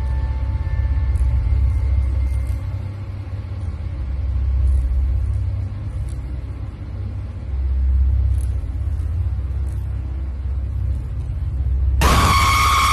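A low, steady rumble, then about twelve seconds in a sudden, loud, high screeching scream: a jump-scare sound effect.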